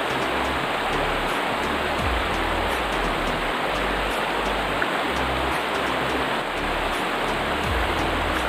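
Background music with a low bass line that changes note every second or so, under a loud, even rushing hiss.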